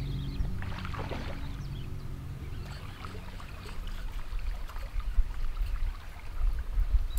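Background music fading out over the first two seconds, then water sounds from a topwater lure on a calm lake: a splash about a second in, then light splashing as the lure is walked back across the surface. A low rumble grows near the end.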